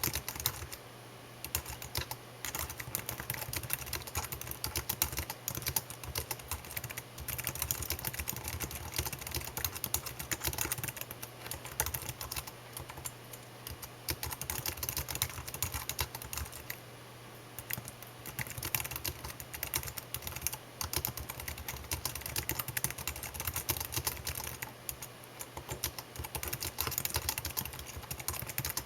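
Continuous typing on a computer keyboard: rapid, uneven key clicks with a few brief pauses.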